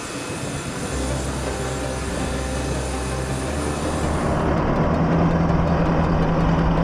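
Steady heavy-vehicle noise: a large military transport aircraft on the ramp with a high whine over a low hum. About four and a half seconds in, this gives way to a deeper, steady engine drone as a tracked self-propelled howitzer drives up the cargo ramp.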